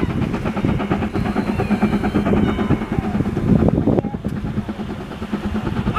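Two-foot-gauge steam locomotive No. 11 running past with its train, a rapid run of exhaust chuffs from the stack mixed with the clatter of wheels on rail.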